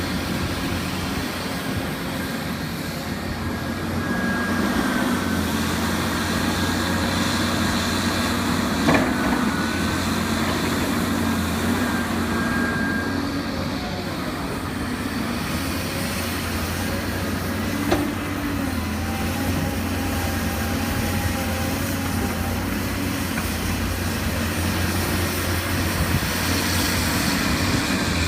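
Caterpillar 325D L excavator working: the diesel engine runs steadily under load, with whining tones that shift in pitch as it moves. Two short sharp knocks come about a third and about two thirds of the way through.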